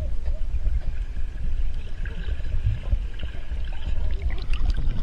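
Muffled underwater sound from a camera held beneath the surface: a low, shifting rumble of water moving around the camera. A few faint clicks and ticks come near the end.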